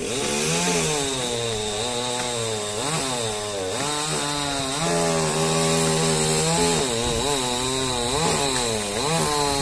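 A motor-driven power tool or small engine running continuously, its pitch rising and falling every second or so.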